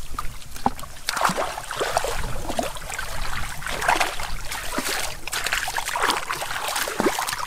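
Hands digging in wet mud and shallow muddy water, giving irregular squelches, wet slaps and small splashes throughout.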